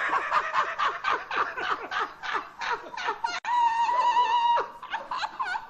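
A man laughing uncontrollably: quick high-pitched bursts of laughter, then a long held squeal in the middle, then more bursts.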